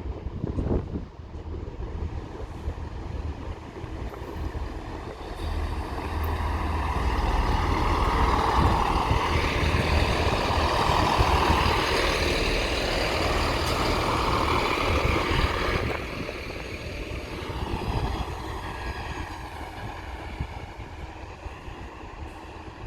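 Train from London Waterloo arriving at the platform: its running noise builds up, is loudest through the middle, then dies away after about sixteen seconds as it slows to a stop.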